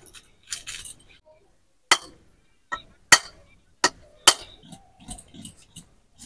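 A whole husked coconut struck hard with a handheld tool to crack it open: four sharp knocks, half a second to a second apart, then lighter clicks and scraping near the end.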